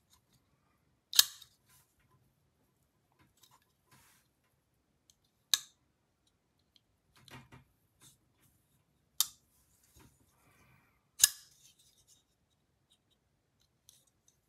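Brown Knives Cortex XL folding knife on freshly fitted Skiff bearings being flipped open four times, each a sharp metallic snap as the blade swings out and locks, with softer clicks between as it is closed again.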